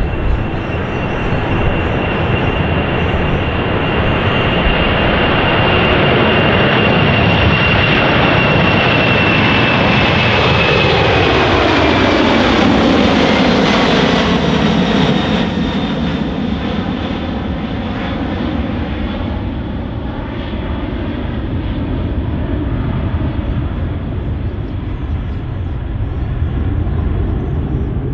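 Qantas Boeing 747-400ER's four GE CF6 turbofans at takeoff thrust as the jet lifts off and climbs past: loud jet noise with a high whine that slowly falls in pitch. About halfway through the noise sweeps downward as the aircraft passes closest, then settles to a lower rumble as it climbs away.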